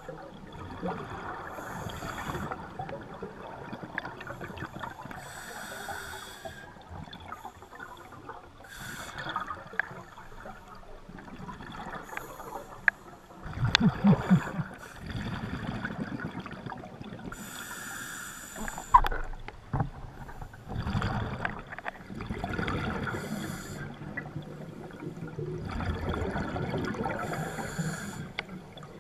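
Scuba regulator breathing heard underwater: a hiss of inhaled air and a rush of exhaled bubbles every few seconds, with gurgling between breaths. A louder low bubbling rumble comes about halfway through, and a few sharp knocks.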